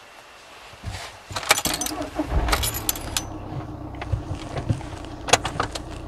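Car keys jangling with a few sharp clicks, followed by the low steady hum of the car's engine running.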